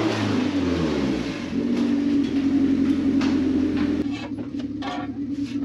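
A motor or engine running steadily, its pitch dropping over the first second before settling into an even hum.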